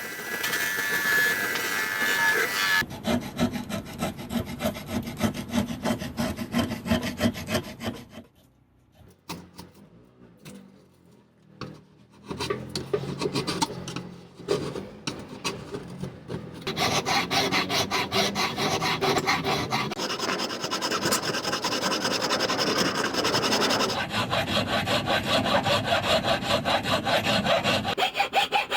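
Hand tools working wood: repeated rasping and sawing strokes across a wooden handle, in several short cut-together clips, with a much quieter stretch about a third of the way in.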